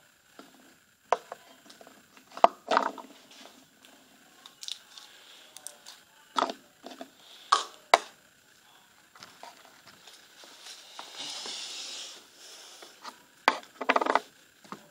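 Plastic containers and small glitter jars being picked up, moved and set down on a tabletop: a series of sharp knocks, with a short rustle about eleven seconds in.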